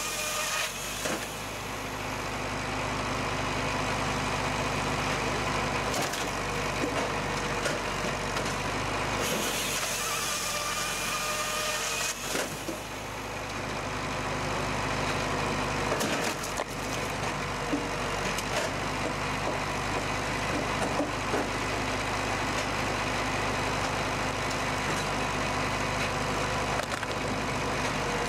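Tractor-driven Tajfun RCA firewood processor running: a steady engine and machine drone, with a few sharp knocks and a faint rising whine for a few seconds near the middle.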